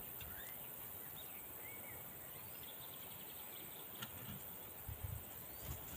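Quiet outdoor ambience: a steady high-pitched insect trill with a few faint bird chirps in the first couple of seconds, a single light tick about four seconds in, and soft low thumps near the end.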